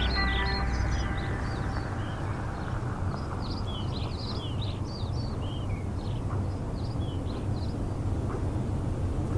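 Many short, high chirps from several small birds over a steady low rumble of outdoor background noise. The last notes of a piano-and-vocal song fade out in about the first second and a half.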